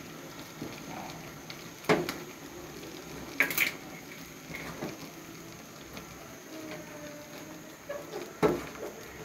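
Thick milky porridge bubbling and sloshing in an aluminium pan as a spoon stirs it, with three sharp knocks of the spoon against the pan: about two seconds in, a double knock around three and a half seconds, and one near the end.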